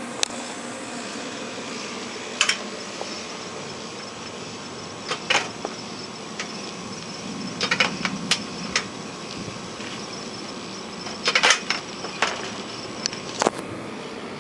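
Sharp clicks and knocks of a screen door being pulled shut and its latch worked, some single and some in quick clusters of two or three, over a steady background hiss.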